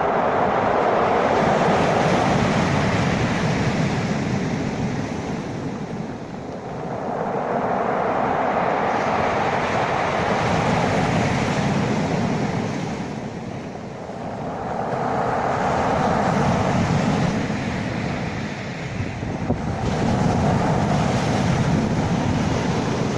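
Sea waves surging and washing in, an even rush that swells and fades about four times, every five to seven seconds.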